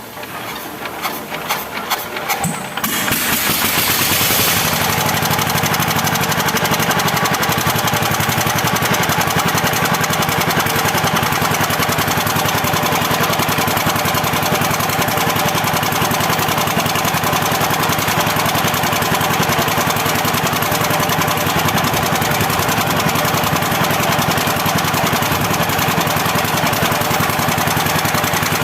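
Single-cylinder KOYO 25HP diesel engine being cranked in uneven strokes, then catching about three seconds in with a brief hiss and running steadily. It is a test run after the injector nozzle was re-adjusted.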